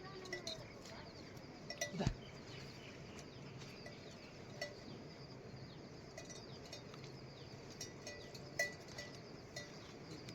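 Livestock bells clinking now and then over a faint steady background, with a single thump about two seconds in.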